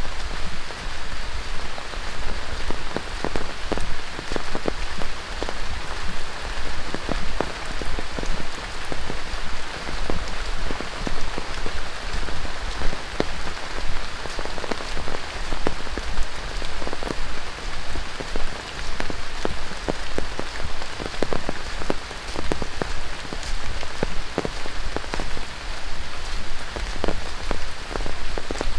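Heavy tropical rain falling on dense rainforest foliage and a wet dirt trail: a steady hiss with many sharp drop taps scattered through it.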